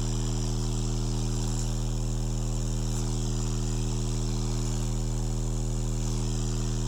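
Canston R50 powered speaker playing a steady deep bass tone, with air rushing and hissing out of its rear bass port: port wind noise at high bass output.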